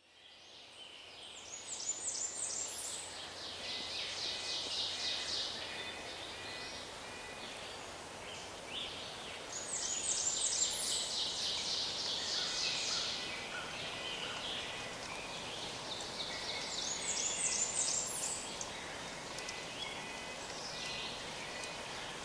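Outdoor field recording fading in: a songbird sings the same song three times, about seven seconds apart. Each song opens with high thin notes and runs into a fast series of notes, over a steady background hiss.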